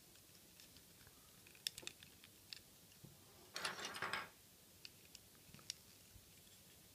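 Faint clicks and scratches of hard plastic as a G1 Seacon Transformers figure, Tentakil, is handled, its arms moved and parts fitted. Single light clicks come every second or so, with a denser bout of scraping and clicking about three and a half seconds in.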